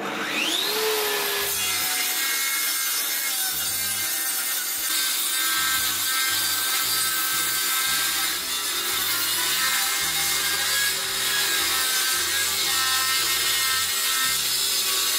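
Table saw ripping a warped pallet board held in a clamped sled: a rising whine as the blade spins up, then a loud, steady cutting noise through the wood that cuts off suddenly at the end.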